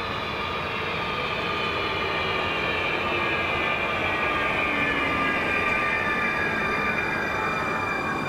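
Electric multiple unit running slowly past. Its traction motors whine in several tones that slide steadily down in pitch as it slows, over a continuous rolling rumble of wheels on rail.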